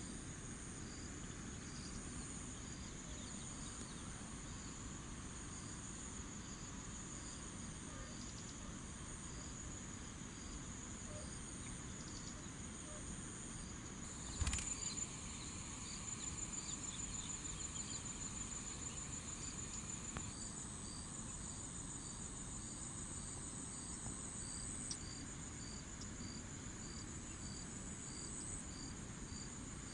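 Insects calling steadily in the waterside grass: a continuous high trill with a regular chirp about one and a half times a second. A single sharp knock about halfway through.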